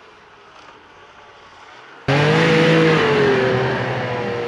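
Yamaha RS 1000 snowmobile's four-stroke three-cylinder engine running: faint and distant at first, then about two seconds in suddenly loud and close as it pushes through deep snow, its pitch dipping slightly and then holding steady.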